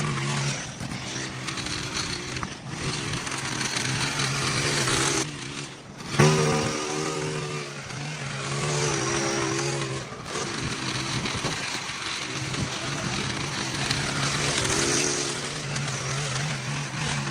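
Small gasoline engine of lawn-care equipment running steadily under load, its pitch rising and falling. It drops away briefly about five seconds in, then comes back loud.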